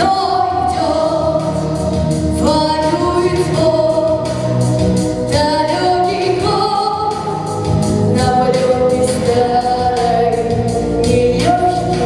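Singing with instrumental backing music: long held sung notes that step from pitch to pitch every second or so.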